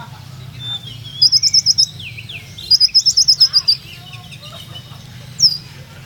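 Van Hasselt's sunbird (kolibri ninja) singing: two quick runs of sharp high notes, the second longer, then a single falling note near the end, with fainter chirps and a low steady hum behind.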